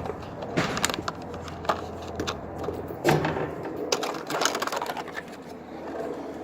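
Hand tools and small metal parts being handled: a string of irregular clicks and clatters, loudest about three seconds in, over a low steady hum.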